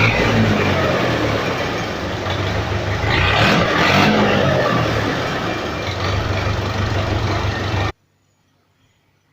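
Massey Ferguson 275 tractor's diesel engine running loud through an old exhaust whose muffler is blown out, swelling a little about three seconds in. The sound cuts off abruptly about eight seconds in.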